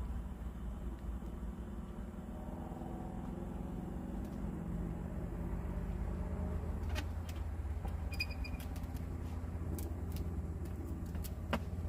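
A heavy oak log rolling across notched 4x4 timbers onto a sawmill bed. The timbers strain under the load, stressing but not cracking, and a few sharp knocks come in the second half.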